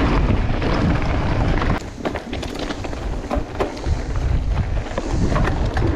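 Mountain bike ride noise from a bike-mounted camera: steady wind buffeting on the microphone and tyres running over dirt and gravel, with sharp clicks and rattles from the bike. The sound drops in loudness about two seconds in.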